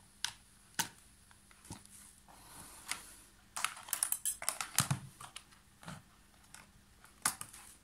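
Scattered light clicks and knocks of cables being handled and plugs pushed into sockets: a DC power plug and 3.5 mm aux jack plugs going into a small amplifier board and a tablet. One sharp click comes about a second in, and a quick run of clicks about four to five seconds in.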